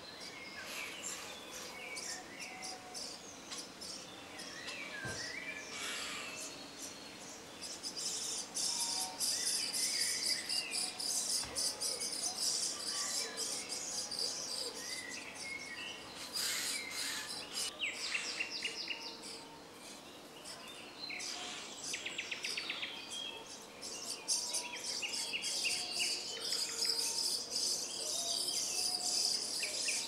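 Common starlings at a tree-hole nest: a dense, high, scratchy chatter of fast clicks and rattles that swells about a quarter of the way in, with scattered short whistled notes.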